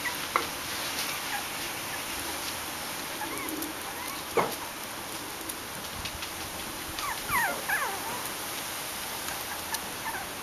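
Bichon Frisé puppies whimpering and yipping in short, high, gliding squeaks, with a quick cluster of them about seven seconds in and a sharper yelp-like sound about four seconds in.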